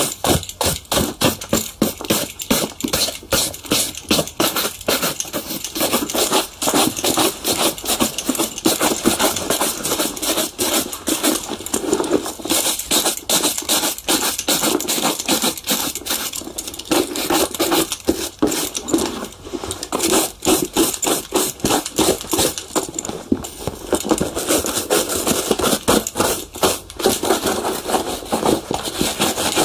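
Shoe polishing: fast rubbing and brushing strokes over a shoe, several a second, keeping up an even scratchy rhythm throughout.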